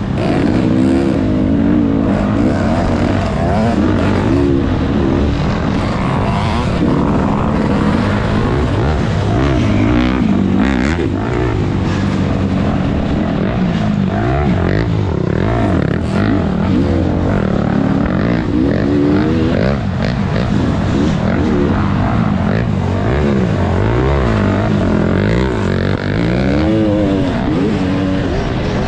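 Dirt bike engine ridden hard off-road, revving up and down over and over as the throttle is worked.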